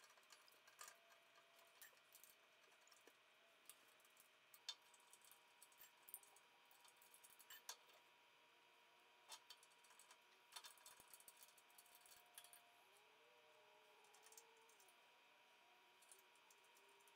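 Near silence with faint, scattered small clicks and taps of metal hardware being handled: bolts, washers and an Allen key as a bandsaw mobile base is bolted on. A faint steady hum sits under it.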